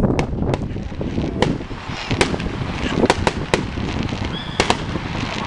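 Aerial fireworks shells bursting in a display: a string of about a dozen sharp bangs at uneven intervals, over a continuous low rumble.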